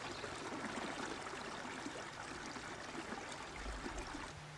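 Small snowmelt creek running: a steady rush of flowing water, which drops away shortly before the end.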